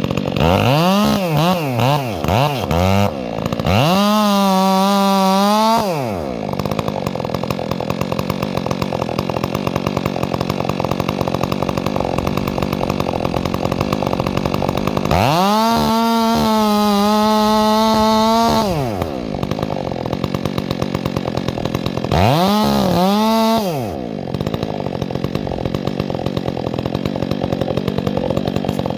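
Chainsaw engine idling, blipped several times in quick succession, then opened up to full throttle three times for a couple of seconds each, the pitch climbing to a steady high whine and dropping back to idle.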